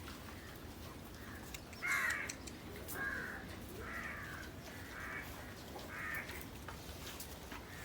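A crow cawing over and over, short calls about once a second.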